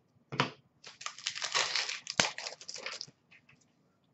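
Trading cards and a pack wrapper being handled: rustling and crinkling for a couple of seconds, with one sharp click just after two seconds in.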